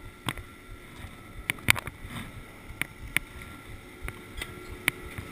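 Steady mechanical hum of a chairlift's bullwheel terminal running, with irregular sharp clicks and knocks from ski poles, skis and boots as the wearer shuffles forward to load.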